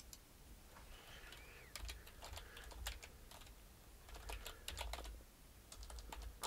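Faint typing on a computer keyboard: keys clicking in quick runs with short pauses between.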